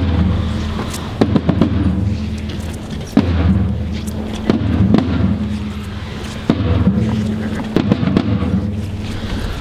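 Slow processional drumming and band music: a heavy drum stroke about every three seconds, with lighter strokes between, over low held notes.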